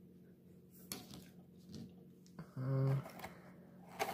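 Faint light clicks and taps of small objects being handled on a tabletop, with a brief low hum from a man's voice about two-thirds through.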